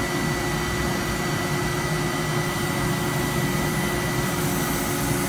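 Industrial machinery running steadily: an even rushing noise with a constant high whine and a lower steady hum.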